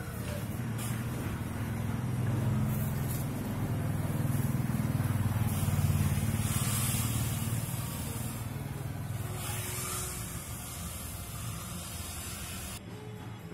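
A road vehicle's engine passing close by, with a low rumble that builds to its loudest about halfway through and then fades away.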